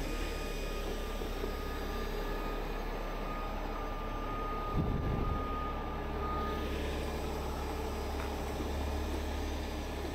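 Diesel engine of a 50-ton heavy rotator tow truck running steadily at idle with its outriggers set, with a thin steady whine over it for the first two-thirds and a brief low thump about halfway through.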